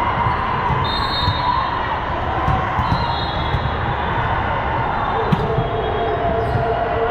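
Indoor volleyball match in a large gym: sharp ball hits, the loudest about five seconds in, and brief high squeaks over a steady din of crowd voices.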